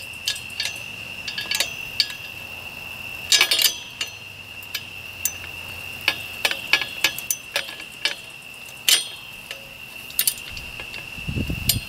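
Irregular metal clicks and clinks from a small latch pin being fitted into the metal tube frame of a game cart, over the steady, high chirring of night insects.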